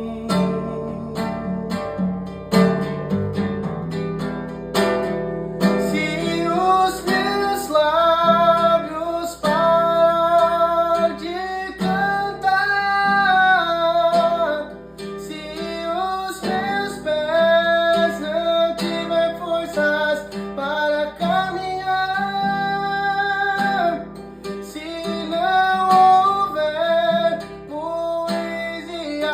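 Acoustic guitar playing a hymn accompaniment, plucked and strummed chords. From about six seconds in, a sustained melody of long, gently sliding notes sounds over the chords without words.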